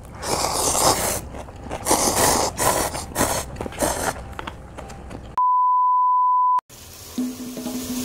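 Loud, repeated slurping of cup ramen noodles by two people for about four seconds. A steady, high, pure beep of a little over a second then cuts in, followed by a quieter stretch with a held low note near the end.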